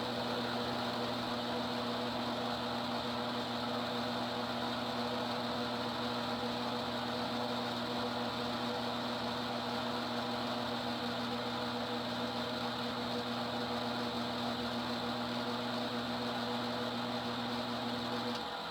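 Homemade lathe running steadily with an electric motor hum and a hiss, turning a small wooden part; the hum stops near the end.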